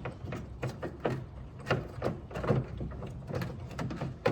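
Irregular light clicks and knocks of hands handling plastic parts behind a car's headlight housing, over a low steady hum.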